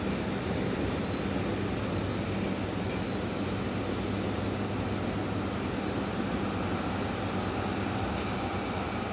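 Heavy construction machinery running with a steady diesel drone and a low, even hum.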